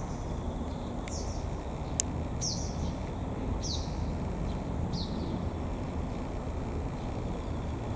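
A bird giving short, sharply falling calls, four in a row about a second and a quarter apart, over a steady low rumble, with one sharp click about two seconds in.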